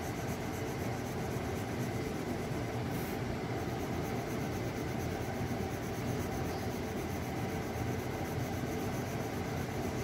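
Graphite pencil shading a light tone on drawing paper: a steady scratchy hiss of strokes, over a faint low hum.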